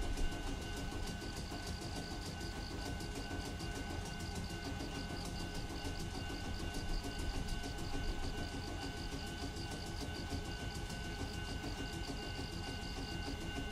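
Air compressor of the stopped Ueda Kotsu Moha 5252 electric railcar running steadily, with a rapid, even chugging rhythm, plus steady high ringing tones throughout.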